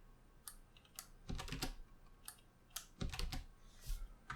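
Computer keyboard typing: scattered key clicks in small clusters, some with a low thump.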